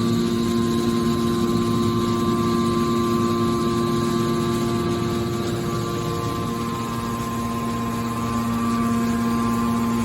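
Horizontal hydraulic metal baler's power unit running with a steady hum, easing off slightly about two-thirds of the way through.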